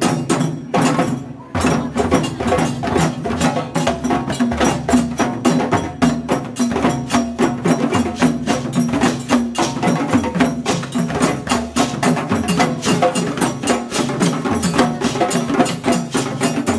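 Hand-drum ensemble playing a steady, densely beaten rhythm, easing briefly about a second in and then carrying on.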